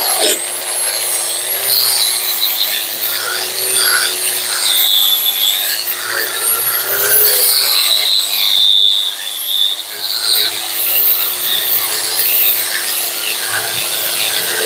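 Handheld angle grinder running steadily, its head scraping old paint and rust off a steel car suspension coil spring. The motor whine wavers slightly as the tool is pressed onto and moved along the coils, with a hissing scrape that swells and fades.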